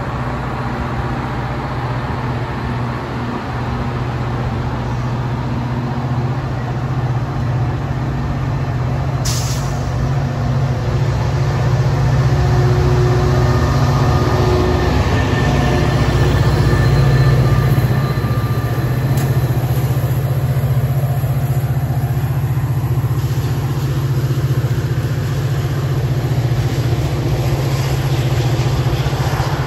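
Metra push-pull commuter train of bilevel cars rolling past at low speed, with steady wheel-on-rail noise over the low drone of the diesel locomotive pushing at the rear. The sound builds as the locomotive draws level and is loudest a little past halfway. There is a sharp click about a third of the way in.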